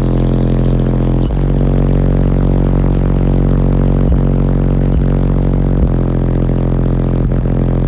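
Loud bass-heavy music played through four 12-inch DC Audio Level 2 subwoofers on a Skar RP2000 amplifier in a hatchback, a deep steady bass note held throughout with short knocks now and then.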